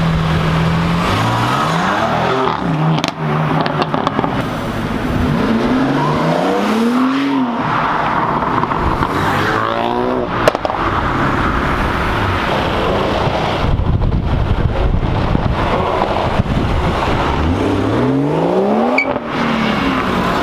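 Supercar engines revving hard as the cars accelerate away one after another, the pitch climbing in several separate pulls over a steady background of road noise. There is one sharp crack about ten seconds in.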